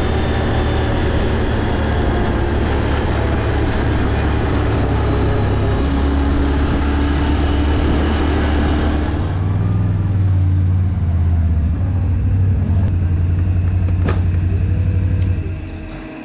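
Can-Am ATV engine running while riding on a gravel road, with wind and tyre noise over the engine. About nine seconds in it settles to a steady idle, and the engine is switched off about fifteen seconds in.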